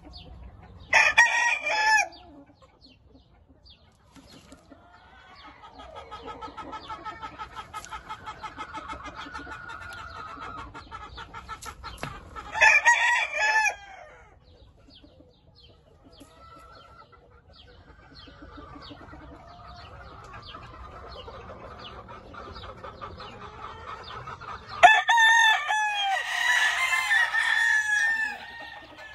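Gamecock roosters crowing three times, about eleven seconds apart, the last crow longer with more crowing running into it. Between the crows, a softer rapid run of clucking.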